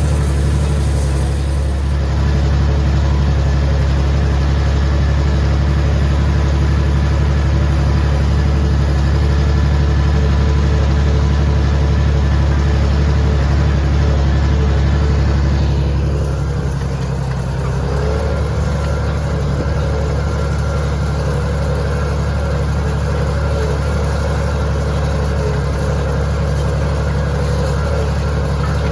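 Farm tractor engine running steadily under load while pulling a hay rake. About sixteen seconds in the engine note dips and then settles at a slightly different pitch.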